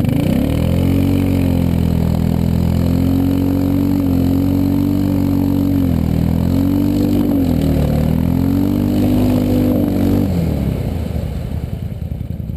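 ATV engine revved hard under load as its wheels spin in deep mud, pushing the stuck quad through a mud hole. The revs hold high, sag and climb back a few times, then drop away near the end.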